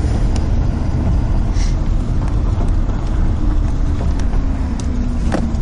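A car driving, its steady low engine and road rumble heard from inside the cabin.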